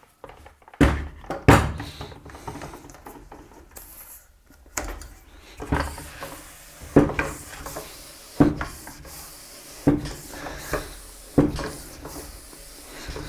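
Bicycle tire being inflated with a hand pump: a regular pumping stroke about every second and a half, each with a thud, over a faint hiss.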